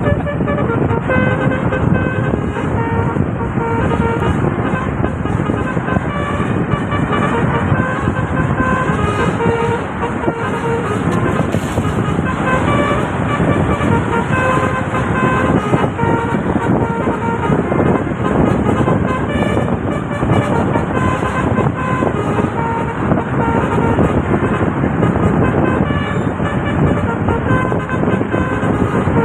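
Basuri 'telolet' multi-tone air horn on a tour bus playing a tune, short notes changing pitch one after another, over a dense low rumble.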